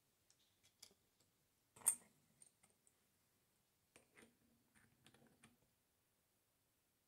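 Faint clicks and light metal rubbing from handling an old hand drill, with one sharp click about two seconds in and a run of small clicks later as the chuck is turned onto its spindle by hand.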